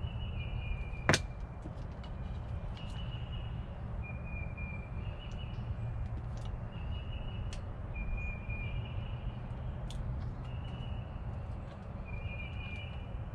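Wire strippers clicking on a wire end as insulation is stripped, one sharp snap about a second in and a few lighter clicks later, over a steady low background rumble. A bird repeats a two-note call every couple of seconds, a higher note stepping down to a lower one.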